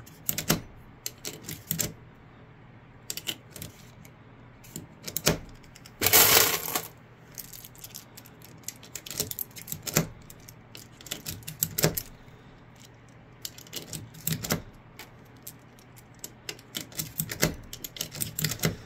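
UpLULA plastic magazine loader being squeezed and 9mm rounds pushed one by one into a Glock pistol magazine: a string of sharp plastic clicks and metallic clinks, roughly a second apart, with a longer, louder rattle about six seconds in.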